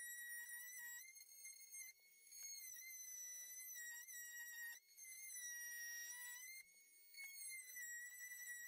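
Oscillating multi-tool plunge-cutting through an MDF panel: a steady high whine that wavers slightly in pitch and dips in level a few times as the blade works the cut.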